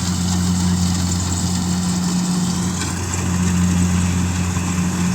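Rice combine harvester running steadily, its engine giving an even low hum.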